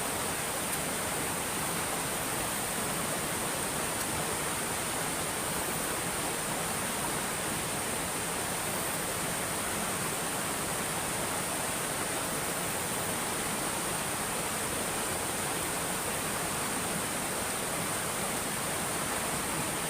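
Steady rushing of flowing water, as from a nearby stream, unchanging throughout, with a steady high hiss above it.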